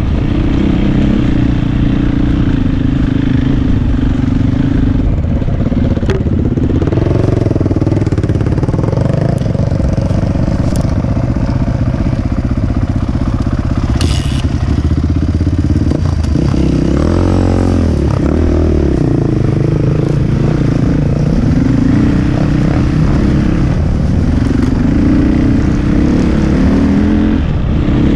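KTM dirt bike engine running with the rider aboard, its pitch rising and falling with the throttle, with a short burst of revving a little past the middle. A second dirt bike, a Yamaha, runs close by.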